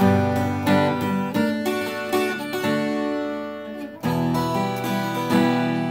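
Acoustic guitar being strummed, chords with a sharp attack on each stroke, changing chord about four seconds in.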